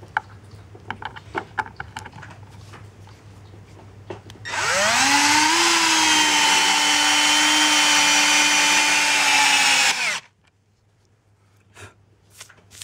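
Cordless drill-driver driving a stainless-steel decking screw into a wooden board: after a few light clicks of handling, the motor spins up about four seconds in, runs steadily under load for about five and a half seconds, and stops suddenly.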